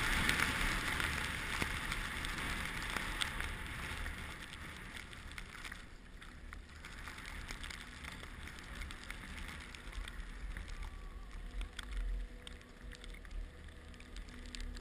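Wind buffeting the microphone over the hiss of skiing on snow. The hiss fades about halfway through as the descent slows, and a faint steady hum comes in near the end.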